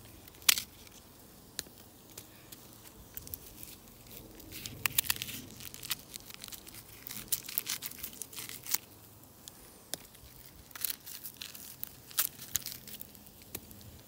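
A knife cutting through an onion held in the hand, its dry papery skin crackling and tearing in scattered sharp clicks and snaps that come in bunches.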